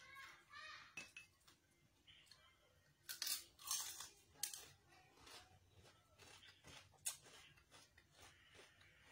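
Crispy fried chicken skin crunching in close bites and chewing, with a burst of loud crackly crunches about three seconds in.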